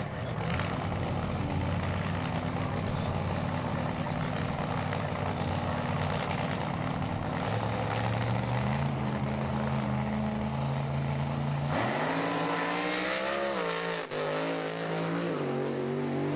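Drag-racing funny car's supercharged V8 idling at the starting line, its note stepping up about halfway through. About three-quarters of the way in the revs rise sharply as the car launches, dip briefly, then climb again.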